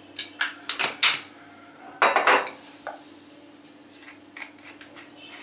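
Kitchen things being handled on a stone countertop: a few sharp clinks and knocks in the first second, then a louder clatter about two seconds in, as containers are set down and picked up.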